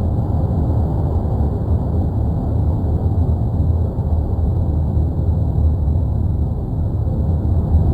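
Steady low rumble of the erupting La Palma volcano, a continuous deep roar without breaks.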